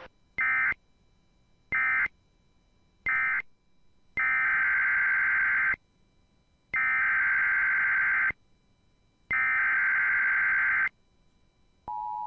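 Emergency Alert System SAME data bursts: three short buzzy digital bursts (the end-of-message code closing the tornado warning), then three longer header bursts announcing the next alert. Near the end the steady two-tone EAS attention signal begins.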